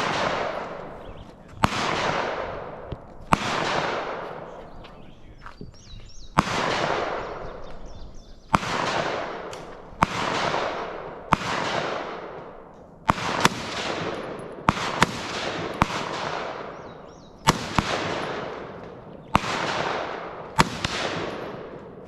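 Gunshots fired one at a time at an uneven pace, about fifteen in all, some close together near the middle. Each is a sharp crack followed by a long rolling echo that fades over a second or more.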